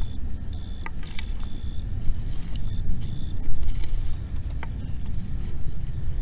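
Wind rumbling on the microphone beside a wood bonfire, with a few scattered sharp crackles from the burning wood. A thin high tone comes and goes over it.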